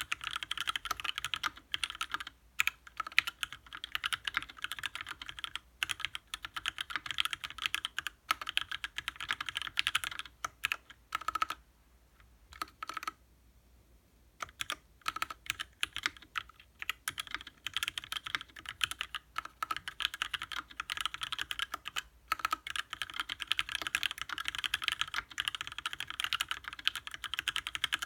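Rapid typing on a custom mechanical keyboard with lubed Gateron Ink switches and GMK keycaps in an aluminium Salamander TKL case: a dense run of keystroke clacks. The typing pauses for about two seconds near the middle, then picks up again.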